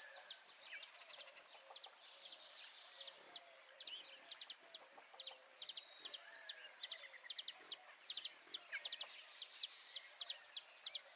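Small birds chirping: many short, sharp, high-pitched chirps over a steady high thin tone that stops near the end.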